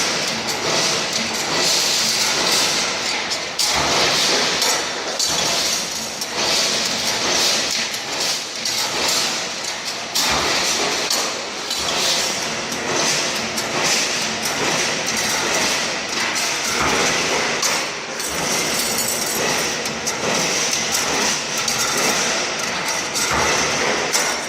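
Automatic steel straightening and bending machine running, with a steady stream of metallic knocks and clanks over continuous mechanical noise.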